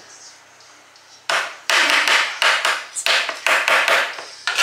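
Spoon scraping cake batter out of a saucepan and tapping it off into a muffin tin. It is a run of sharp scrapes and taps, about two a second, starting about a second in.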